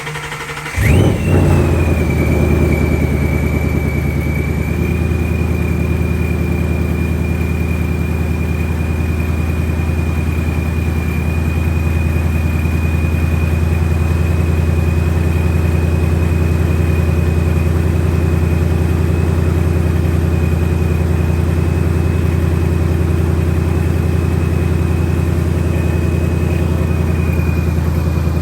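Supercharged 5.0 L Coyote V8 of a 2019 Mustang Bullitt starting about a second in, flaring briefly and settling into a steady idle. A constant high whine rides over the idle, dipping with the start-up flare as it settles.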